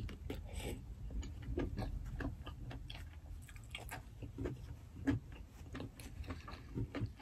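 Close-up mouth sounds of someone eating buttery lobster: chewing, lip-smacking and finger-licking, heard as a string of small, irregular wet clicks and smacks.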